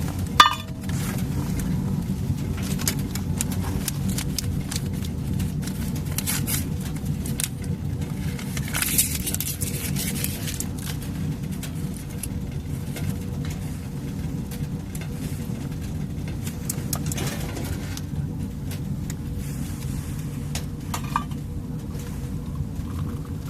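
A steady low rumble, with scattered light clicks and knocks and one sharp knock right at the start.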